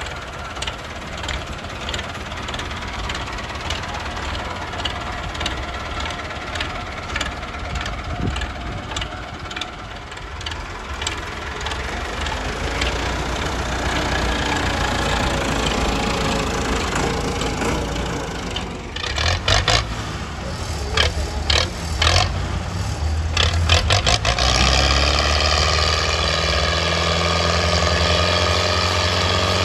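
Tractor diesel engines, a Massey Ferguson 375 among them, running hard under heavy load while towing a stuck, fully loaded sugarcane trolley, with a regular knocking beat. About two-thirds of the way through comes a spell of loud, sharp knocks and clatter, then one engine runs louder and steadier as the trolley moves.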